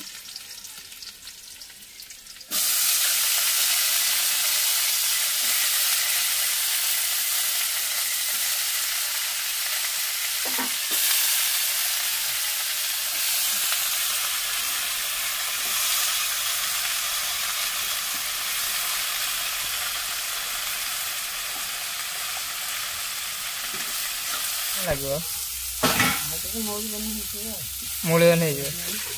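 Chopped okra dropped into hot oil in an iron wok, starting a loud, steady sizzle about two and a half seconds in as it fries and is stirred. A few knocks of the spatula come near the end.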